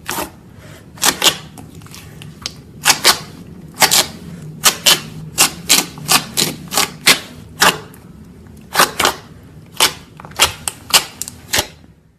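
Slime being squeezed and pressed by hand, giving sharp popping clicks at an irregular pace, often two in quick succession.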